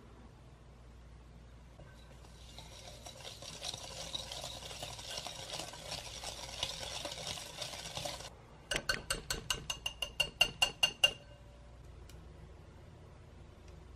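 Wire whisk stirring butter, sugar and egg yolk in a glass bowl: a steady scraping swish for about six seconds, then about a dozen quick, ringing taps of the metal whisk against the glass that grow louder before stopping.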